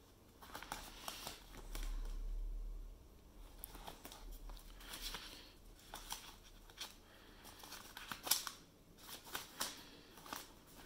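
Old paper sheet-music pages being leafed through by hand: soft rustling with scattered short crinkles and page snaps, the sharpest about eight seconds in. A low rumble swells briefly about two seconds in.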